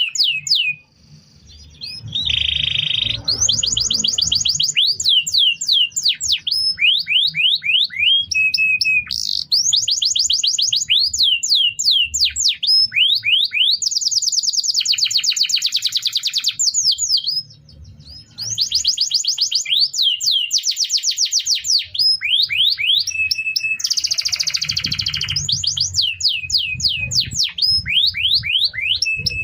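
Domestic canary singing: a long, continuous song of rapid trills and runs of repeated falling whistled notes, changing phrase every second or two. There are brief pauses about a second in and near the 18-second mark.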